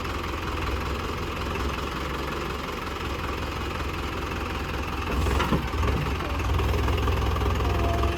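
Mahindra tractor's diesel engine running steadily, getting louder about five seconds in, with a single sharp knock at that point.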